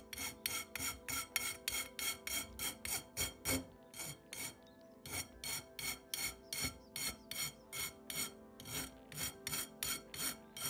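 Flat hand file rasping across the outer edge of a cut half-inch copper tube in quick, even strokes, about three a second, with a short pause a little before the middle. The filing is taking off the raised edge and burr left on the tube's end by the tubing cutter.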